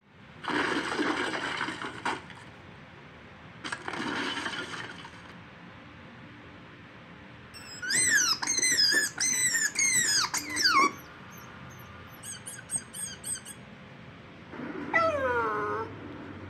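Recorded animal sounds, played back. Two bursts of hissing come first. Then a run of high cries that each fall in pitch, then a quick series of short high chirps, and near the end one longer cry that slides down in pitch.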